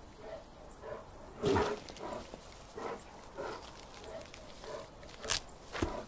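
Grizzly bear breathing and snuffling in short, soft sounds about twice a second, with a few sharper, louder sounds among them.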